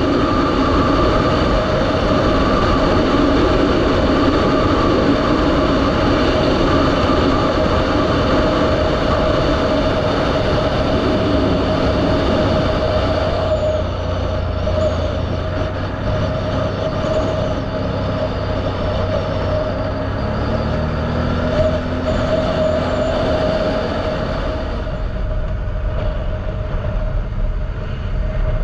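Can-Am Outlander 1000 ATV's V-twin engine running steadily under way, a dense, even mechanical drone that eases slightly about halfway through.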